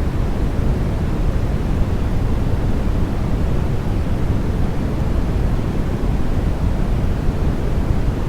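Steady synthetic white noise for sleep, weighted to the low end so it sounds deep and rushing rather than hissy, running without any change.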